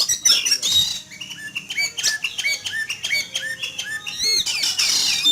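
Caged Oriental magpie-robin calling hard: a fast run of short, sharp, repeated notes, with a harsh rasping chatter near the end. The uploader hears it as the bird's agitated alarm at an eagle flying overhead.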